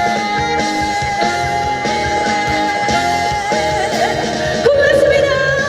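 Live trot band music at the close of a song: a long held note over the backing band, then a fresh swell of the band near the end.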